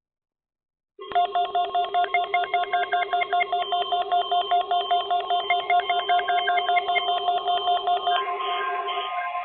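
Canadian emergency alert attention signal: a loud warbling electronic tone starts about a second in and alternates rapidly between several pitches, like a fast-ringing phone. Near the end it changes into a denser, steadier tone.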